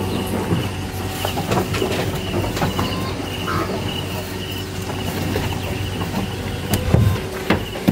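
A steady low machine hum with scattered knocks and rattles, and a heavier thump about seven seconds in.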